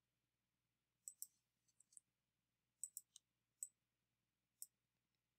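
About ten faint, irregular clicks of a computer mouse and keyboard as a spreadsheet formula is typed and cells are selected, over near silence.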